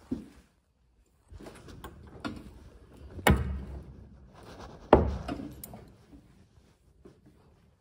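A door being handled: rattling and clicks, with two loud thuds, one about three seconds in and one about five seconds in.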